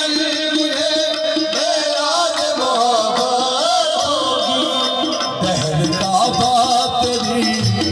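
Qawwali music: harmoniums playing under a male lead voice singing a wavering, ornamented line, over a hand-drum rhythm. The low drum strokes come in more strongly after about five and a half seconds.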